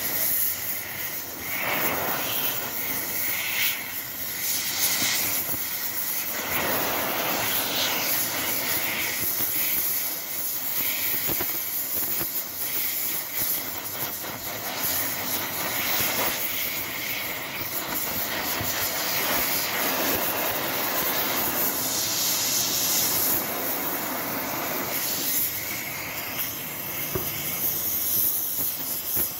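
TIG welding arc on aluminium: a steady, continuous noise that wavers slightly in strength and never breaks off.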